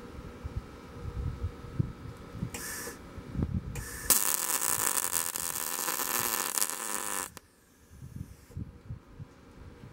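Wire-feed welding arc crackling and hissing as the expanded steel mesh is welded to the grate frame: a short burst of about half a second, then a steady bead of about three seconds that cuts off sharply. Wind rumbles on the microphone between the welds.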